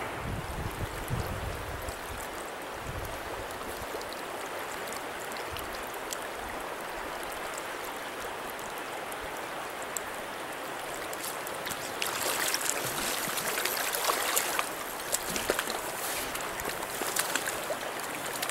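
Stream water rushing steadily over a shallow, rocky bed. It grows louder and brighter about twelve seconds in, with scattered sharp ticks.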